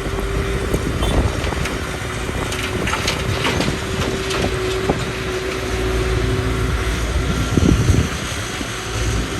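Excavator engine running steadily with a low rumble and a steady whine that stops about seven seconds in. Scattered knocks and clanks come through the middle, and there is a louder surge shortly before the end.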